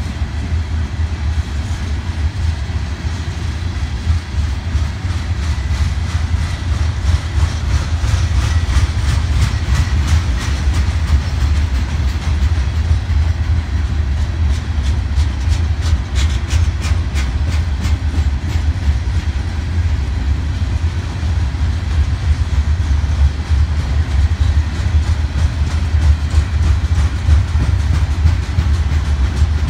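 Loaded phosphate train of covered hopper cars rolling past: a steady, heavy low rumble with a rapid clicking of wheels over the rails, the clicking busiest in the middle.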